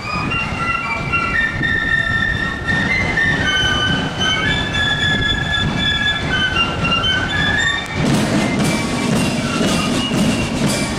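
Marching flute band playing a tune: many flutes in unison carry a shrill melody over side drums and bass drum. About eight seconds in, the flute melody drops back and the drumming comes to the fore.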